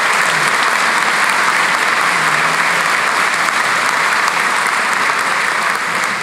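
Audience applauding steadily, a dense clapping that eases off slightly near the end.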